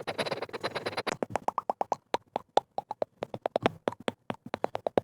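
ASMR trigger sounds: about a second of dense scratching, then a quick run of crisp taps or clicks, several a second, each with a short hollow ring.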